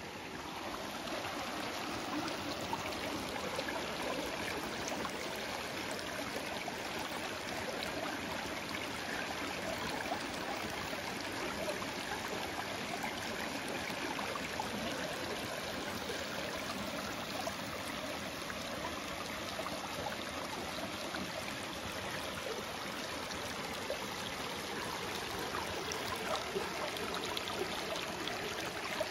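Shallow stream water running steadily over flat rocks.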